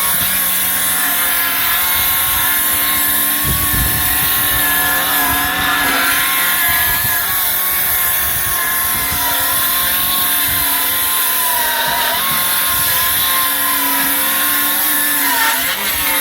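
Hilti 6.5-inch cordless circular saw ripping a 2x10 lengthwise: a loud, steady motor whine with the blade cutting through the wood, its pitch sagging slightly a few times under load.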